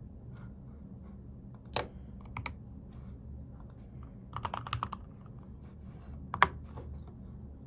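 Scattered keystrokes on a computer keyboard. There are single clicks about two seconds in, a quick run of several keys in the middle, and a sharp, louder click near the end, over a low steady hum.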